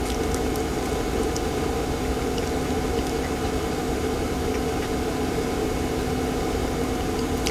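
Steady mechanical hum of a small motor running, with a held tone over a low drone and a few faint ticks.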